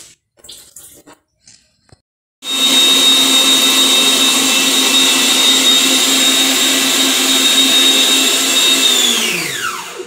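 Electric stand mixer's motor switched on about two seconds in, running steadily with a constant whine and hum while beating cake batter, then switched off near the end, its pitch falling as it winds down.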